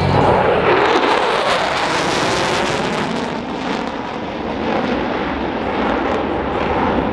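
Loud jet noise from an EA-18G Growler's twin General Electric F414 turbofans in afterburner as the jet pulls a hard banking turn. The noise eases slightly partway through, then builds again.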